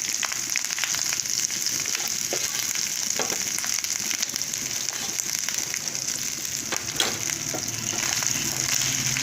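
Vegetables and spice paste sizzling in hot oil in a frying pan while being stirred, with a steady hiss and scattered scrapes and knocks of the spatula against the pan; a sharper knock comes about seven seconds in.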